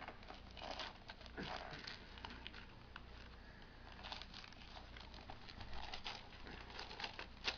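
Gift-wrapping paper being handled and torn open, faint, irregular crinkles and rustles.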